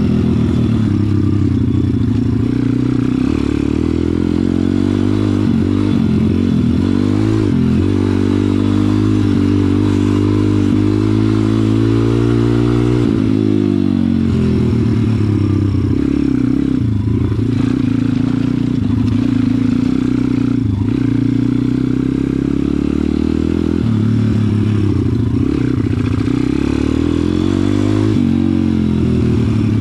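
Stomp WPB 140 pit bike's 140cc single-cylinder four-stroke engine running under way on a dirt track, its pitch rising and falling as the throttle opens and closes, with a sharp drop about halfway through and then a climb again.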